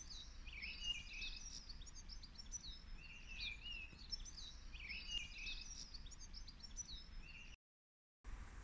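Faint birdsong: a songbird singing short, repeated warbling phrases of quick chirps over a low background rumble, cutting out to silence for about half a second near the end.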